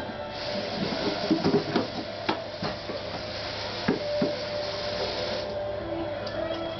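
A run of short, sharp knocks and clatters of hard objects set down or handled on a wooden surface, bunched in the first three seconds with two more about four seconds in, over a faint steady hum.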